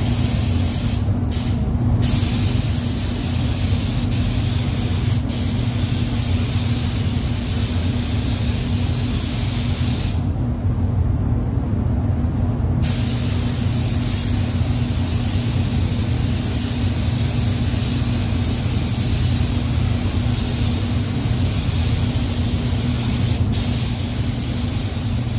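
Paint spray gun hissing as a truck's wheel tub is sprayed, the hiss stopping briefly each time the trigger is let off: twice about a second in, for a couple of seconds about ten seconds in, and once more near the end. A steady low hum runs underneath.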